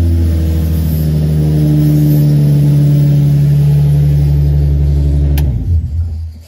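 Nissan 350Z's V6 engine running steadily at a fast idle just after starting, then a sharp click about five seconds in and the engine dies away and stops. It is a test run after the starter and alternator wiring was redone to cure its hard starting.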